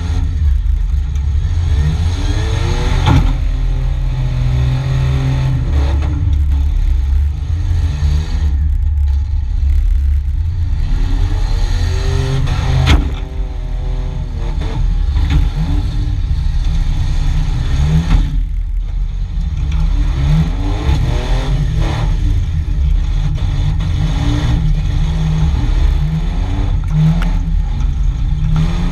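Demolition derby vehicle's engine heard from inside its stripped cab, revving up and down again and again over a constant low rumble. One sharp bang comes about thirteen seconds in.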